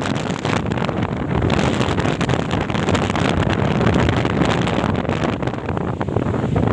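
Strong gusty wind blowing hard, buffeting the microphone with a loud, continuous rushing noise.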